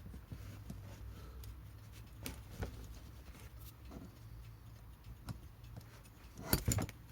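Small irregular clicks and taps of tweezers and small metal alarm-clock parts being handled, with a louder cluster of clicks about six and a half seconds in.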